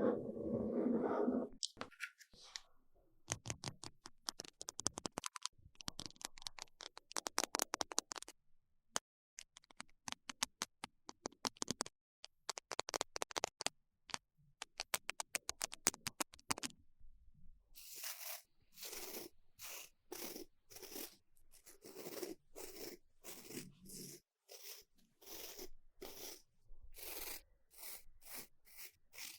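Close-miked ASMR scratching and scraping on an object. It opens with a short, louder rough sound, goes into dense, rapid clicking scratches, and about two-thirds of the way through changes to evenly spaced scraping strokes, about two a second.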